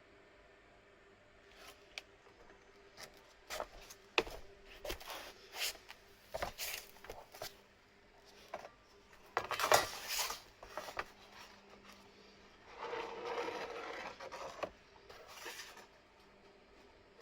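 Irregular scrapes, rubs and small clicks of hand work with tools and parts. The loudest is a short scraping rush about ten seconds in, followed by a longer rubbing scrape of a second or so.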